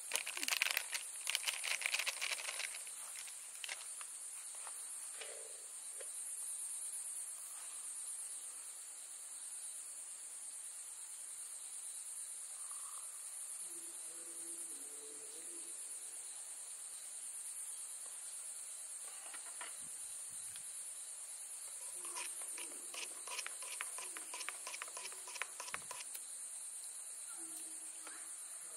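A steady, high-pitched insect chorus, with the crinkle and patter of coffee sachets being emptied into steel cups in the first few seconds and a spoon clinking against a steel cup near the end.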